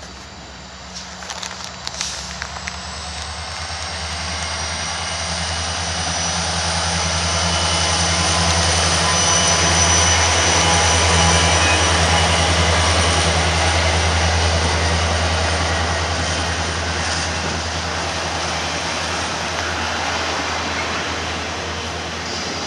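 Union Pacific diesel locomotives pass with a low engine drone, followed by the steady rolling noise of a train of autorack cars on curved track. The sound swells to its loudest about halfway through and then eases a little.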